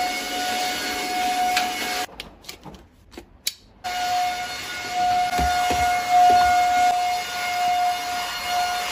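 Corded handheld stick vacuum cleaner running with a steady high motor whine over a rushing air hiss. It drops out for about two seconds near the start, then runs again, with a few soft low bumps as the nozzle works.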